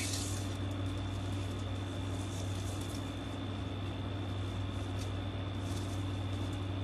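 Steady low hum with a faint high-pitched tone running over it, and a few faint brief rustles of satin ribbon being folded and tucked by hand.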